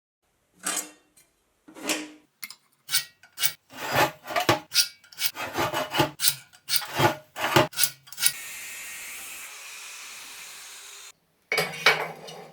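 Irregular rasping strokes, like sawing or filing, for about eight seconds. Then a steady hiss runs for about three seconds and cuts off suddenly, and a few more strokes follow near the end.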